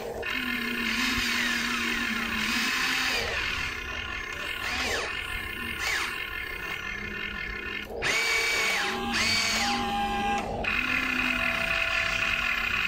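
Electric motors and gearboxes of a Huina RC excavator whining in short runs as the arm, bucket and body move, the pitch rising and falling with each motion.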